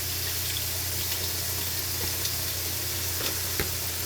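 Chicken frying in a pan, a steady sizzle, with a couple of light clicks near the end.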